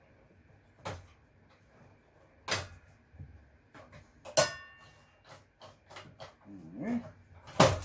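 Scattered knocks and clunks of hard parts being handled while scrap is taken apart, one about halfway through with a brief metallic ring. A dog whines briefly near the end.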